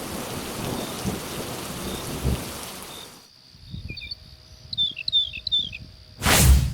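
Steady rain with low rumbles of thunder that cuts off abruptly about three seconds in, followed by a few short, pitch-gliding bird chirps. A loud thump near the end.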